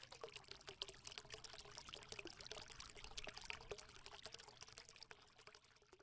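Faint crackling made of many tiny ticks, close to the sound of trickling or pouring, over a faint steady hum. It is the sound effect of a channel's logo animation.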